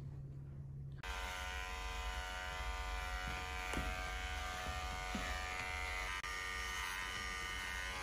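Corded electric hair clippers buzzing steadily as they shave a head down to the scalp, starting about a second in.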